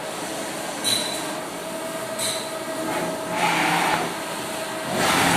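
CNC lathe turning the outside diameter of a 12 mm rod on its finishing pass: a steady whine from the running machine, with short swells of cutting noise about one and two seconds in and louder stretches of cutting noise from about three seconds in and near the end.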